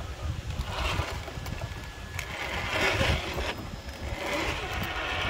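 RC crawler's brushed 550 electric motor and geared drivetrain whirring in surges as the truck crawls over rocks, about a second in, around three seconds and again near the end, with a low rumble underneath.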